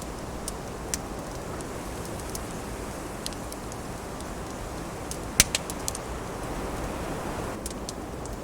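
Wood fire burning in the wind: a steady rushing noise with scattered sharp crackles and pops. The loudest is a quick cluster of pops about five and a half seconds in.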